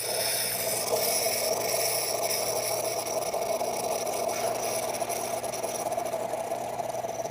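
Gaggia Titanium espresso machine's vibratory pump buzzing steadily while it dispenses hot water, with water hissing from the hot water spout.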